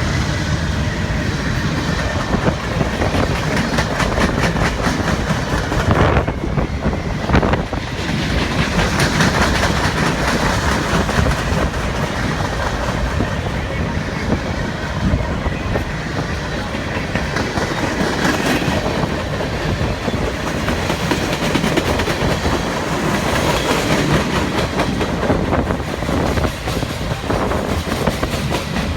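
CN freight train's cars rolling past: a steady loud rumble with a rapid clickety-clack of steel wheels over the rail joints.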